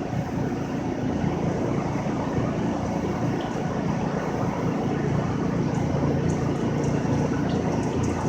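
An engine running steadily at idle, a continuous low drone.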